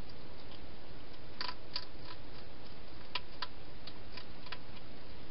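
Wild hedgehog eating at a feeding bowl: a run of about eight sharp, irregular clicks of chewing, over a steady background hiss.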